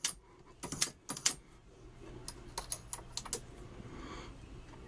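Hornady Lock-N-Load AP reloading press cycled to throw a powder charge from its case-activated powder measure, with a cluster of sharp metallic clicks about a second in, then lighter clicks and clinks as the brass case is taken from the shell plate.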